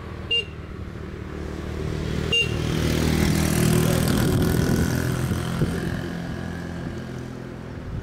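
Small moped engine passing close by, getting louder to a peak around the middle and then fading as it rides away. Two short high beeps sound near the start, about two seconds apart.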